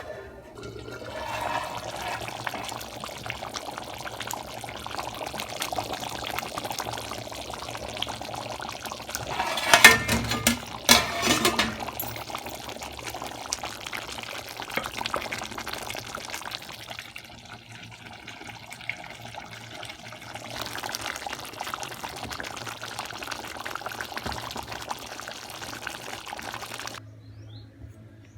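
Steady rushing water sound, with a few loud metallic clanks about ten to twelve seconds in. It cuts off suddenly near the end.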